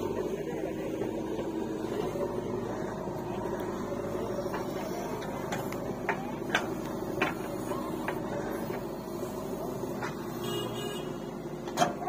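JCB 3DX backhoe loader's diesel engine running steadily as it works its bucket, with a few sharp knocks in the middle and a louder one near the end as soil is dumped into a tractor trolley.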